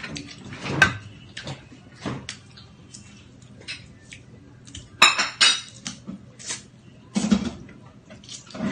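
Cutlery clicking and scraping against plates and bowls while picking at seafood, in scattered short taps, with a louder cluster of sharp clinks about five seconds in.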